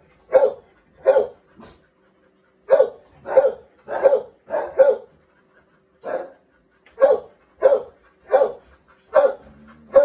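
A dog barking over and over, a dozen or so short sharp barks in quick runs of one to two a second, with brief pauses between runs.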